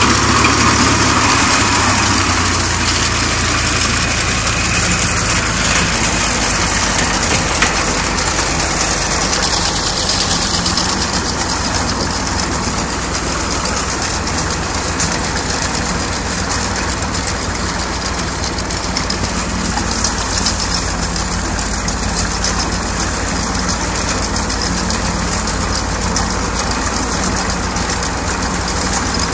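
Farm tractor engine running steadily under load as it pulls a SIP 220 hay rake through cut hay, heard close to the tractor.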